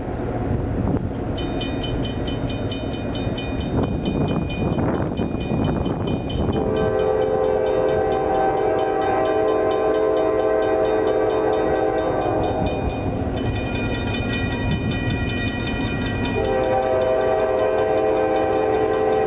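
Locomotive air horn on a CSX freight train sounding a long chord over the train's rumble. It grows loud about a third of the way in, breaks off briefly, then sounds again for the last few seconds. A fast, evenly repeating high ding runs through the first two-thirds.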